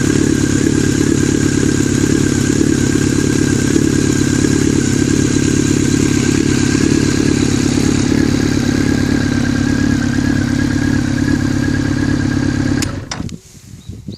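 Honda CB1300's inline four-cylinder engine running steadily through a Moriwaki header and K-Factory MotoGP-style titanium silencer, its mechanical engine noise audible, then shut off near the end.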